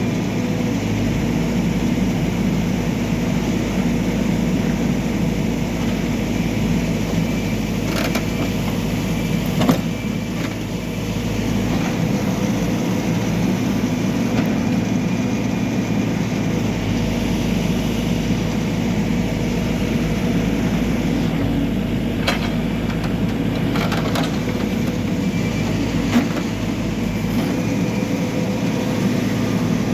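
Backhoe loader's diesel engine running steadily, with a few sharp metallic knocks.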